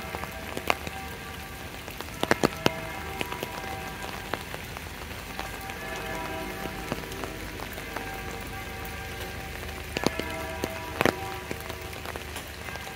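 Steady rain falling, with sharp, close drop impacts on top, the loudest clusters about two seconds in and again near eleven seconds. Faint music with held notes plays in the background.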